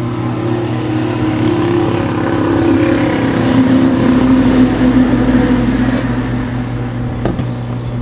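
A motor vehicle's engine passing by, growing louder to a peak about halfway through and dropping in pitch as it goes past before fading, over a steady low hum. A sharp click sounds near the end.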